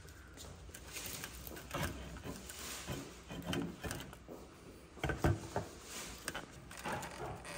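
Irregular knocks, scrapes and rubbing from handling a whole roast sheep, with metal rods being worked out of the carcass against a metal tray, and one louder knock about five seconds in.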